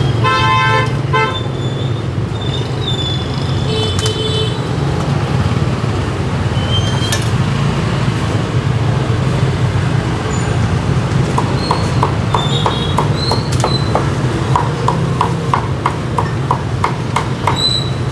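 Street traffic with engines running steadily, and a vehicle horn honking twice right at the start and once more briefly about four seconds in. In the second half come two runs of quick ticks, about four a second.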